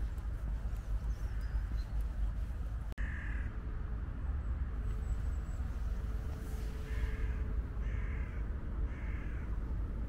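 A crow cawing four times, a single caw and then three more about a second apart, over a steady low rumble.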